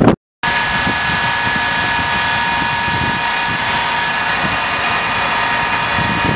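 Fire engine's engine and rear-mounted water pump running steadily with a hose coupled to the pump: an even mechanical drone with a steady high whine. It comes after a brief gust of wind on the microphone and a short break.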